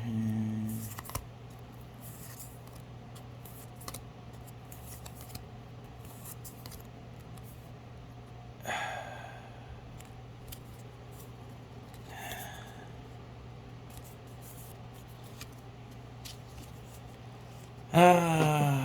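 Pokémon trading cards being handled and slid over one another: faint clicks and rustles over a steady low hum, with a short falling vocal groan near the end.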